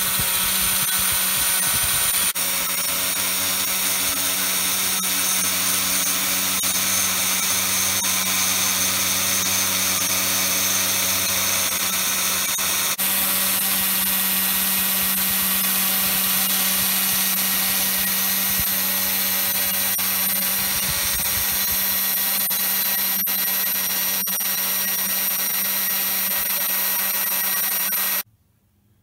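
3018 PRO desktop CNC router milling lettering into a beech board: a steady spindle whine with the noise of the bit cutting wood. It cuts off abruptly about a second before the end.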